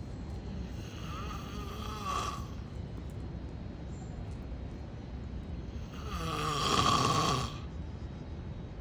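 A man snoring in deep sleep: two long, strong snores about five seconds apart, the second louder.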